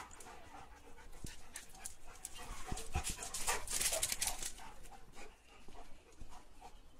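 A dog panting, with scattered short taps and scuffs.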